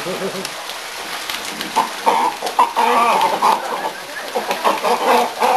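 Cormorants in a pool calling in short, repeated calls that come thick from about two seconds in, over splashing water.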